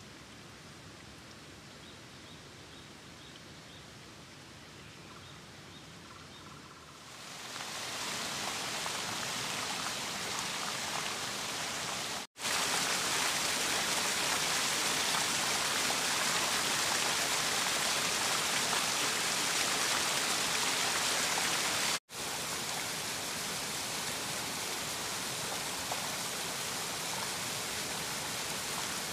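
Small rocky stream rushing and splashing over stones, a steady loud rush that swells in about a quarter of the way through after a quieter stretch, with two brief drop-outs where the shots change.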